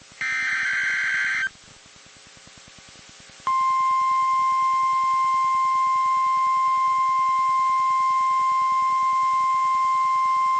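NOAA Weather Radio alert: a burst of warbling SAME header data tones lasting about a second, then faint hiss. About three and a half seconds in, the steady 1050 Hz weather radio warning alarm tone starts and holds, announcing a new warning broadcast.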